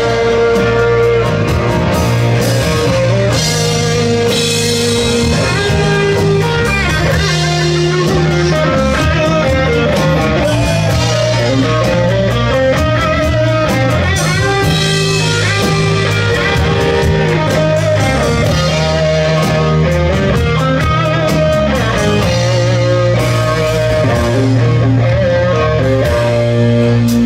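Live band playing the instrumental ending of a country song without vocals: guitar playing a bending melodic lead over bass and drum kit. Near the end it settles into a held chord.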